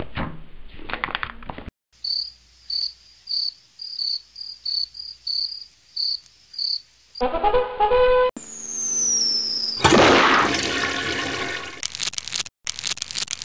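A string of animation sound effects: about a dozen short, high, insect-like chirps at an even pace, then a brief horn-like note, a falling whistle, and a loud rushing noise that fades, ending in rapid clicking.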